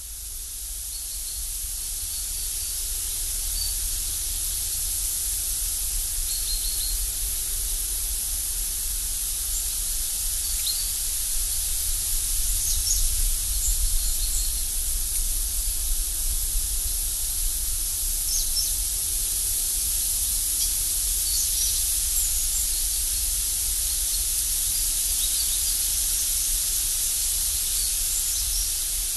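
Outdoor woodland ambience: a steady high hiss over a low rumble, with short high chirps from small birds scattered throughout.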